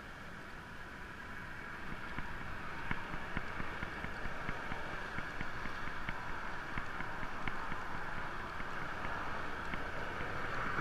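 Steady outdoor rush of wind and road traffic on a bridge, growing a little louder about two seconds in, with faint light ticks every half second or so.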